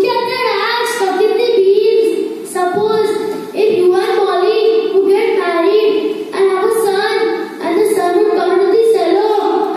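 A boy singing into a handheld microphone: one voice carrying a melody in a string of held notes.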